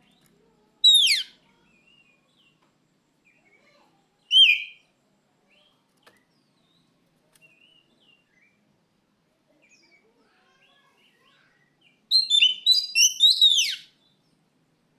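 Oriental magpie-robin (kacer) singing: two loud sweeping whistles, the first falling steeply in pitch about a second in and the second a few seconds later, then a quick run of loud whistled notes near the end, with faint soft chirps between.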